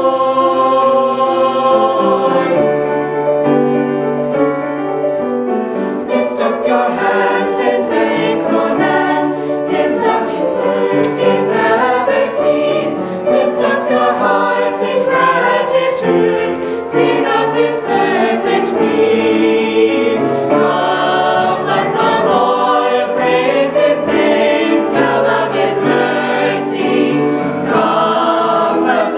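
Mixed choir of young men's and women's voices singing a hymn together, sustained without a pause.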